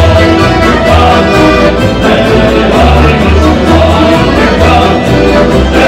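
Street band of accordions, acoustic guitar and upright double bass playing a lively tune, with a bass line of low notes changing about twice a second.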